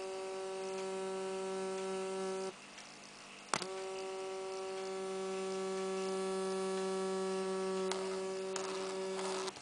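Modified Bedini pulse motor coil buzzing with a steady electrical hum as the circuit oscillates. The hum cuts off about two and a half seconds in, comes back with a click about a second later, and stops again with a click near the end.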